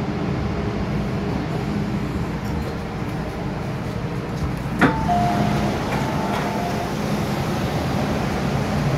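Hong Kong MTR M-Train standing at a platform with a steady low rumble. About five seconds in, the passenger sliding doors release with a sharp clunk and open, followed by a short two-tone sound lasting about two seconds.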